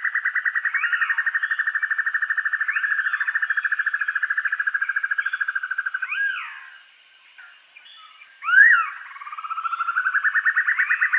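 Banded broadbill (sempur-hujan rimba) singing a fast, even trill that fades out about six seconds in and starts again, swelling, near the end. Short rising-and-falling call notes are scattered over it, the loudest in the gap.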